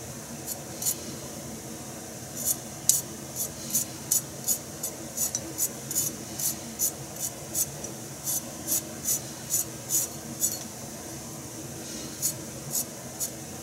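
Kitchen knife shaving thin slivers off a burdock root (sasagaki): a run of short, crisp scraping strokes, about three a second, with a pause near the end.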